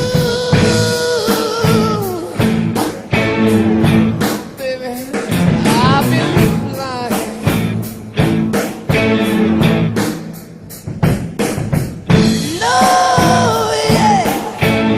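Rock music: sustained lead notes that bend and slide in pitch, over a steady drum beat and bass.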